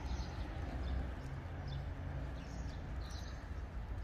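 Quiet outdoor ambience: a low steady rumble with faint, scattered light ticks.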